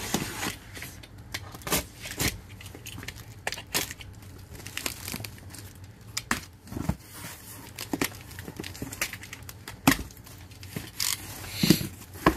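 Packing tape being slit and ripped on a cardboard box, then the cardboard flaps pulled open: an irregular run of short rips, scrapes and rustles, the sharpest about ten seconds in and shortly before the end.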